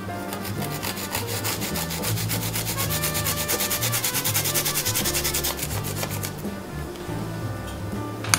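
Garlic clove grated on a small flat metal grater: a rapid run of rasping strokes that stops about six seconds in.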